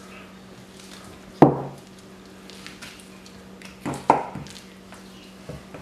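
Knife and deer leg bone knocking on a granite countertop while meat is cut off the bone. There is one sharp knock about a second and a half in, two more just after four seconds, and a couple of faint ones near the end, over a low steady hum.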